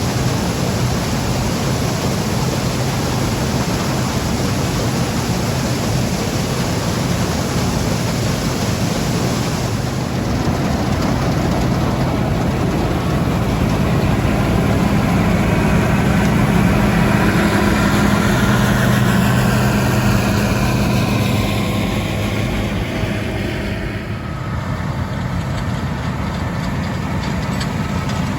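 Heavy diesel farm machinery running steadily under load. A higher whine falls in pitch as the sound swells through the middle and then eases off.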